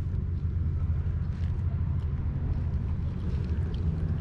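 Steady low engine rumble, like a motor vehicle running nearby, with faint small ticks on top.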